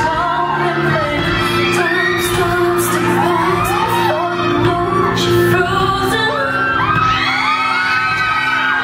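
Pop song with a voice singing over a backing track, played loud through a hall's sound system.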